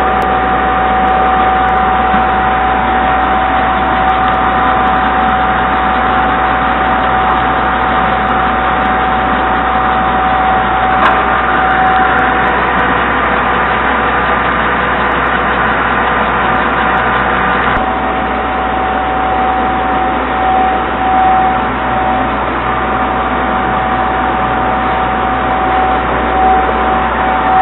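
Concrete mixing pump running steadily: a constant machine drone with a steady whine over it, the higher part of the noise easing slightly about two-thirds of the way through.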